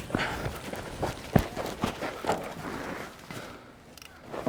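Footsteps on dirt with gear rustling: a string of irregular scuffs and clicks, the sharpest about a second and a half in.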